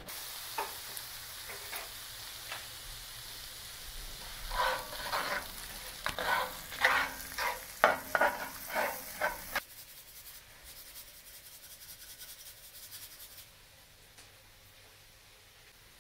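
Diced onions sizzling in melted butter in a cast iron skillet, with a spoon stirring and scraping across the pan in about ten quick strokes in the middle stretch. The sizzle stops abruptly about ten seconds in, leaving only a faint hiss.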